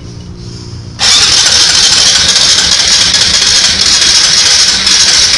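Honda Supra X125's single-cylinder engine running just after being started, then loud and harsh for about four seconds as the throttle is opened hard from about a second in. It has just had its combustion chamber chemically decarbonized.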